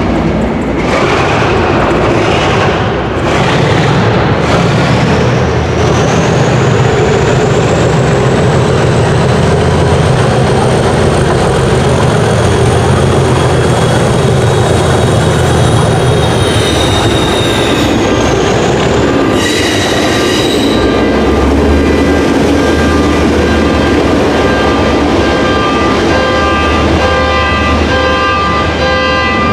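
Pair of Class 37 diesel locomotives with English Electric V12 engines accelerating hard under full power, the engines thrashing with a rising turbocharger whistle that falls in pitch as they pass. In the last third a car alarm sounds in steady repeating electronic tones over the engine noise.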